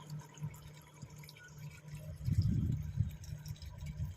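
Faint water dripping and splashing over a steady low engine hum, with a louder low rumble swelling for about a second, two seconds in.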